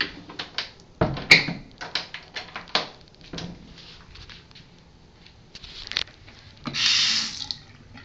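Bathroom sink faucet turned on briefly, water hissing into the basin for about a second near the end. Before it come scattered sharp clicks and knocks.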